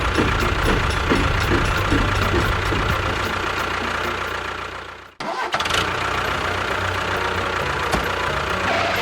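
A motor or engine running steadily with a low hum and a fixed whine. It cuts out abruptly about five seconds in, then comes straight back at the same pitch.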